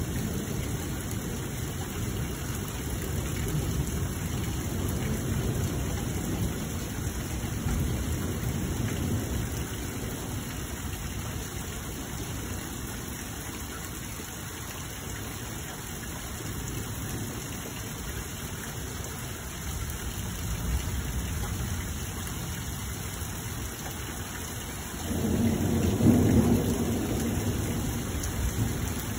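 Thunder rumbling in slow waves over a steady hiss of rain. A louder thunder peal comes in suddenly near the end.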